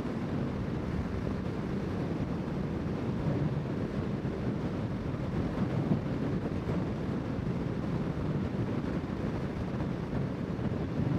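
Honda CBR650R's inline-four engine running steadily under a constant rush of wind noise on the rider's microphone.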